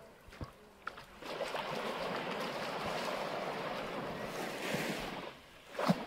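A small wave washing up the sand at the water's edge of a calm bay: a hissing wash that starts about a second in, lasts about four seconds and fades out. A short, sharp knock or splash is heard near the end.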